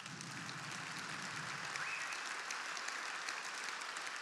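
A large audience applauding, many hands clapping together; the applause swells up quickly at the start and then holds steady.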